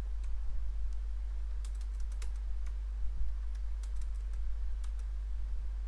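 Computer keyboard typing: scattered, irregular key clicks as numbers are entered, over a steady low hum.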